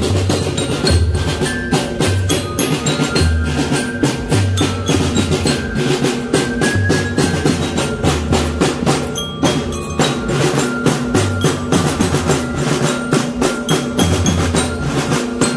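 Drum band playing: snare and bass drums beat a fast, even rhythm while mallet bells ring out short melody notes over deep bass notes.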